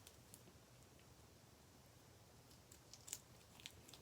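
Near silence, then a run of faint, sharp clicks and crackles in the second half, from slime being pressed and handled.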